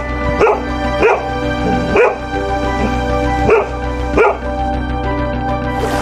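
Husky giving five short barks over background music.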